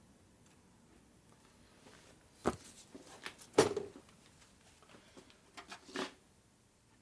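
Metal tools and parts clinking and knocking as they are handled and set down on a steel workbench. There are a few sharp clicks from about two and a half seconds in, the loudest about halfway through, and a short cluster more near the end.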